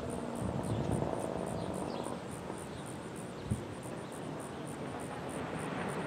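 Quiet outdoor background while the siren is silent: a low wind-like rumble with a faint high ticking about four times a second. A single soft low thump comes about three and a half seconds in.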